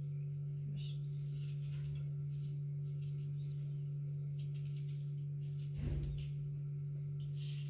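A steady low hum throughout, with faint light clicks and crackles from food being peeled by hand and one dull thump about six seconds in.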